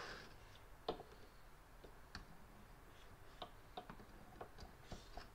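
Faint, scattered light clicks of smog pump parts knocking together as the cover is fitted by hand onto the pump body, its rotor shaft being worked through the vane bearings.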